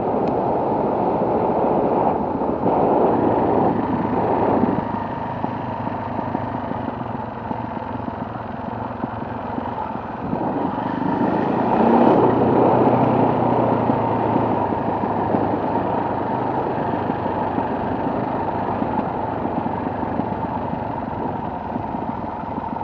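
Off-road motorcycle engine running continuously while riding a dirt forest trail, mixed with rushing wind noise on the microphone; it grows louder for a couple of seconds about eleven seconds in.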